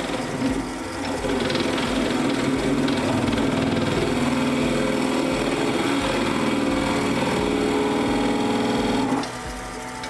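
Wood lathe running while a twist drill bit in a hand-held Jacobs chuck bores into a small spinning wooden blank: a steady, loud mechanical whir with a pitched tone. About nine seconds in, the sound drops sharply as the bit is withdrawn from the hole.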